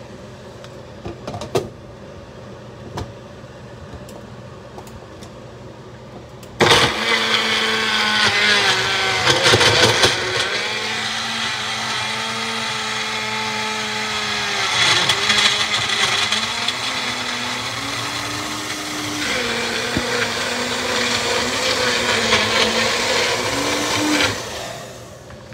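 A few light knocks, then a Magic Bullet personal blender starts about six seconds in and runs for about eighteen seconds, chopping frozen mango chunks, which clatter against the cup a few seconds after it starts. Its motor pitch dips as the thick frozen mixture kind of gets stuck, then rises near the end before it stops suddenly.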